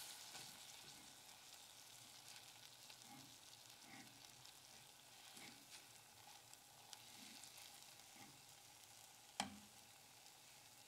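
Butter and flour cooking into a roux in a stainless steel saucepan: a faint sizzle, with soft scraping as a silicone spatula stirs the paste. One sharp knock about nine seconds in.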